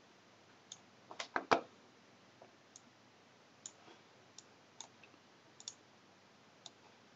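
Computer mouse clicking: scattered single clicks, with a louder quick run of clicks and a knock about a second and a half in.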